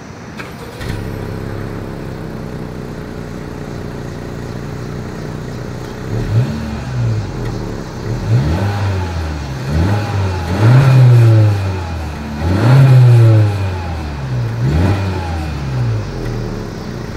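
Exhaust note of a 2020 Honda Civic Hatchback's 1.5-litre turbocharged four-cylinder, heard at the rear of the car. It idles steadily for several seconds, then is revved repeatedly: a string of quick blips, with two longer, louder revs held for about a second near the middle.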